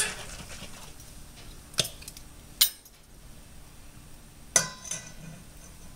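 About four sharp metallic clinks as a metal tablespoon measure and a glass sauce bottle knock against a stainless steel mixing bowl, two of them close together near the end.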